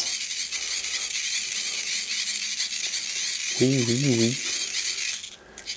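Hand-crank dynamo LED flashlight being wound: the gears give a steady whirring rasp with a whine that wavers with the cranking speed, stopping about five seconds in.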